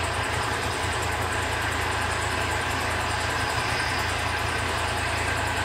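Diesel engine of a 3-ton rough-terrain forklift running steadily at a constant low speed.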